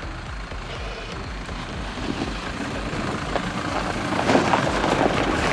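Toyota Land Cruiser 3.0 diesel climbing a rocky, snowy track, its engine running under load while the tyres crunch and crackle over snow and stones. It grows louder from about two seconds in as it nears.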